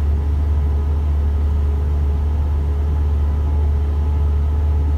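Isuzu FVR truck's diesel engine running at a steady cruise, heard as a steady low drone with road noise from the moving truck.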